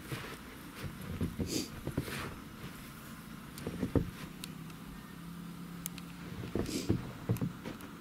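Boots trudging through deep, fresh snow: uneven crunching steps with rustling, the heaviest about halfway through and near the end. A faint steady hum sits under the steps in the middle.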